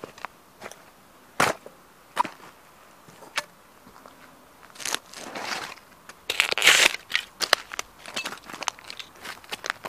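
Leather rigger work boots stomping on the broken plastic pieces of a collectible Mercedes model car on gravel: sharp separate snaps and cracks, then a louder burst of crunching about six to seven seconds in, followed by more quick cracks.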